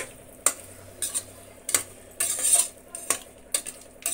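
A spatula scraping and knocking against the inside of a pressure cooker pot while stirring a thick onion-tomato masala with boiled eggs. There are about seven short, irregular strokes, with one longer scrape around the middle.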